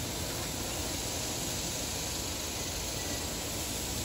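Chicken sizzling on a grill: a steady hiss.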